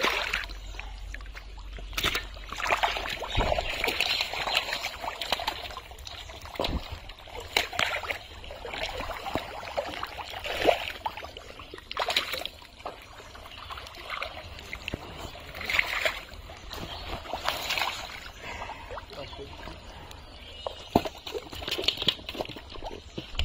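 Wet mud sloshing and squelching as hands dig and pull through it, with irregular splashes and slaps as eels are grabbed out of the mud.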